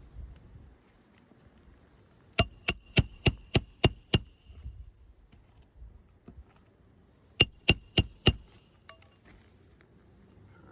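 Roofing hammer driving nails into asphalt shingles: a run of seven quick, evenly spaced ringing strikes, then a pause and four more near the middle of the stretch.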